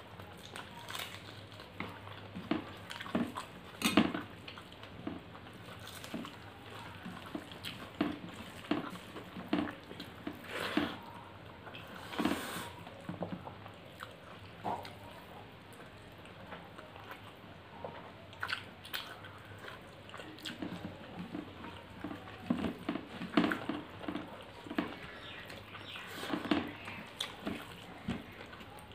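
Close-miked eating sounds: wet chewing and lip smacks, with fingers mixing and squishing rice and curry on the plates, heard as irregular short clicks and squelches.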